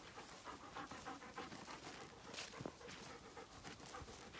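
Faint, quick rhythmic panting.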